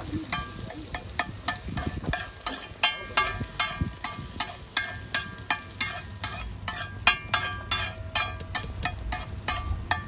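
Metal spatula clinking and scraping on a large flat griddle (tawa) as eggs are chopped and pushed together: sharp, briefly ringing clinks several times a second in an uneven rhythm, over eggs sizzling on the hot plate.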